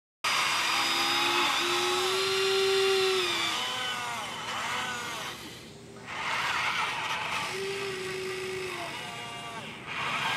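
Electric motors of a Huina 1583 RC wheel loader whining as it drives and works its bucket in a dirt pile. The pitch holds steady, then slides up and down, with a brief lull about halfway.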